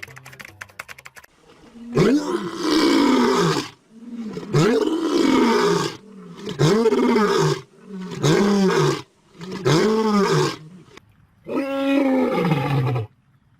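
Lion roaring: a series of six deep roars a couple of seconds apart, starting about two seconds in. Each rises and then falls in pitch.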